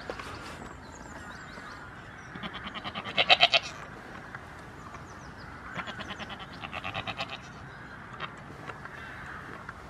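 Goats bleating: two long, quavering bleats, the louder one about three seconds in and another about six seconds in.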